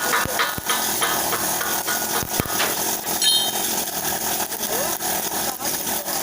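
Argon welding arc hissing steadily, with irregular crackles.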